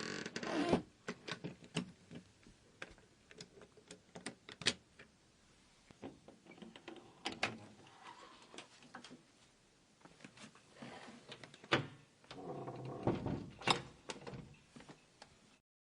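A door being opened and closed: scattered clicks and knocks of the latch and handle, with several sharper knocks among them.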